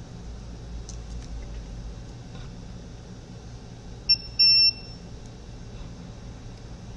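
Digital multimeter beeping twice while probing a filter on a circuit board, a short high beep and then a slightly longer one, over a low steady hum.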